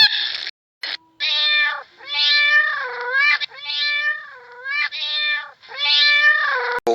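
A cat meowing repeatedly, about six drawn-out meows in a row, each dipping and rising in pitch.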